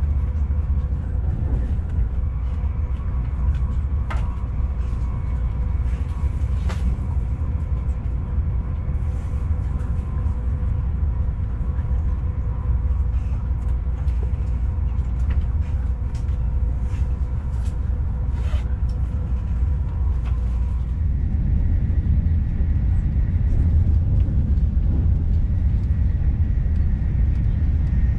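Interior noise of a Siemens S-103 (Velaro E) high-speed train running between stations: a steady low rumble with a faint whine and a few light clicks. About two-thirds of the way through, the faint whine gives way to a higher one.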